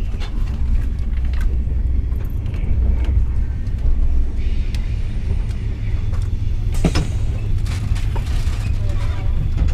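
TGV running slowly over the station approach tracks, heard from inside the coach: a steady low rumble with scattered clicks and knocks from the wheels over rail joints and points, and one sharp knock about seven seconds in. A rushing hiss comes in about four and a half seconds in and fades out near the seven-second mark.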